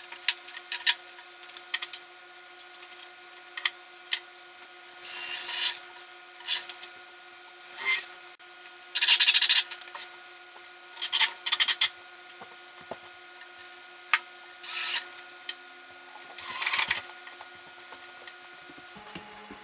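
Short scraping strokes, each up to about a second long, with scattered clicks and knocks between them, over a faint steady hum.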